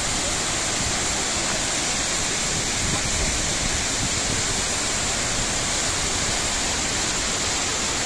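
Kapuzbaşı waterfall: many cascades of water pouring down a cliff face onto rocks, a steady, unbroken rush of falling water.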